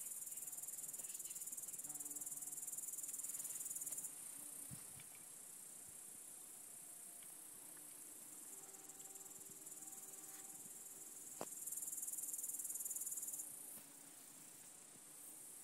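Insects chirring in a summer garden: a continuous very high-pitched chirr, strong for the first four seconds, then fainter, swelling again for a second or so near the end.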